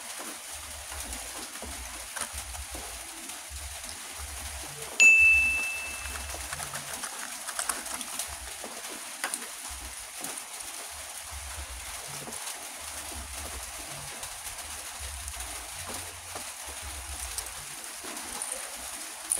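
Faint clicks of hands handling small die-cast toy cars and their plastic packaging over a steady hiss, with a single clear ding about five seconds in that rings out and fades over about a second.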